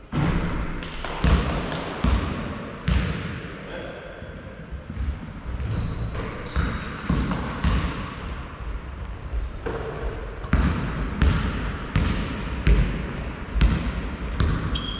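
Basketball bouncing on a hard sports-hall floor during play, sharp echoing thuds about one or two a second, with short high squeaks of players' shoes on the court now and then.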